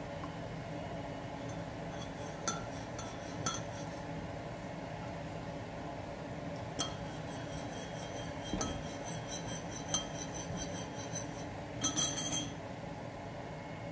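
Metal spoon clinking against a ceramic coffee mug while creamer is stirred in: single clinks every second or two, then a quick cluster of clinks near the end, over a steady low hum.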